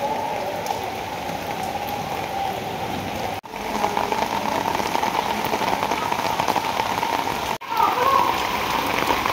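Steady rain falling onto standing floodwater, a dense even patter of drops on the water surface. It cuts out for an instant twice, about a third of the way in and again near the end.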